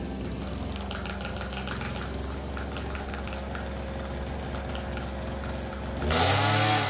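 Engine brush cutter idling with a light rattle, then revved up sharply and loudly about six seconds in.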